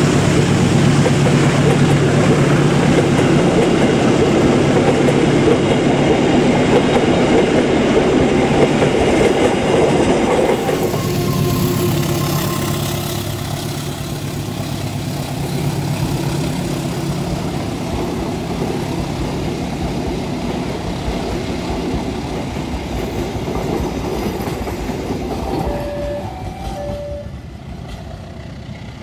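A diesel-hauled passenger train climbing slowly on a steep gradient: the coaches and wheels run past on the rails over a steady low engine hum. About ten seconds in the sound drops suddenly, then carries on quieter and fades as the train moves away.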